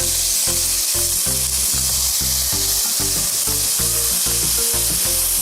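Chopped tomatoes and seasonings sizzling steadily in hot oil in a pot, the first stage of a stew sauce, over background music with a rhythmic bass line.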